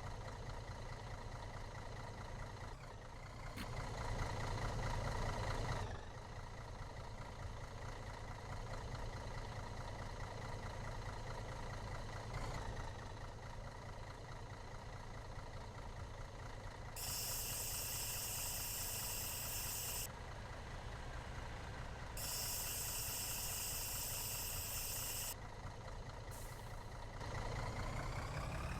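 A vehicle engine running steadily, with two hissing bursts of about three seconds each past the middle and the engine revving up near the end.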